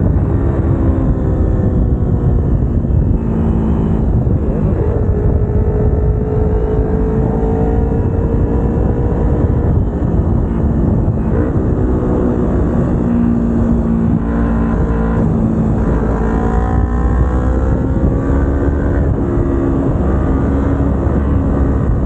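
Kawasaki Ninja 250R's parallel-twin engine running under way, its pitch falling and rising with the throttle through the bends, over a heavy low rush of wind on the microphone.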